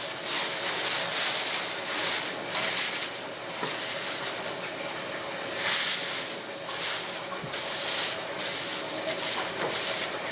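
Crumpled clear plastic covering film crackling and rustling as it is unfolded and pressed flat by hand, in a string of uneven crackly bursts.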